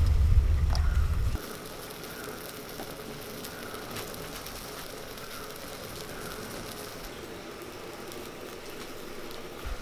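A low rumble for the first second and a half, which cuts off suddenly. Then a wood fire burning quietly under a lidded clay pot, with a steady soft crackle and an occasional faint snap.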